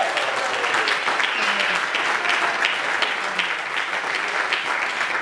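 Church congregation applauding with steady, dense clapping.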